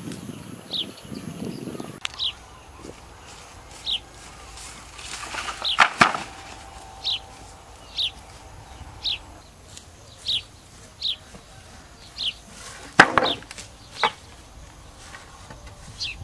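A bird repeats a short high call about once a second. Twice, about six seconds in and again near thirteen seconds, bundles of thin wooden poles are dropped onto a pile on the ground with a sharp knock; the second knock is the loudest.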